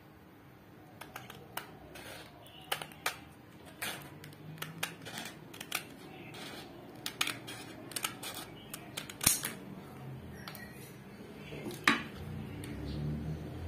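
Scissors cutting a sheet of sandpaper: a run of sharp, irregular snips and clicks as the blades work through the backing.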